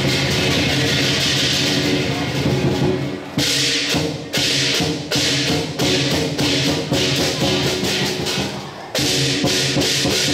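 Lion dance accompaniment: a drum and clashing cymbals played loudly and continuously, with a run of sharp accented strokes, two or three a second, through the middle.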